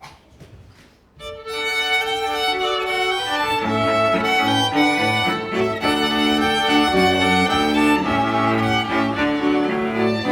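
A few soft knocks, then bowed strings start playing about a second in, led by violin, with lower string notes joining underneath a couple of seconds later.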